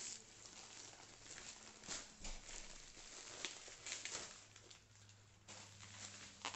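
Faint rustling and crinkling of a mail-order package being unpacked by hand, with bubble wrap being pulled out near the end.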